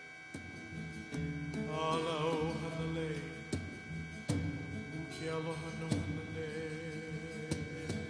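Soft background music: a wavering melody line swells in twice over a low repeating accompaniment, with a steady hum beneath.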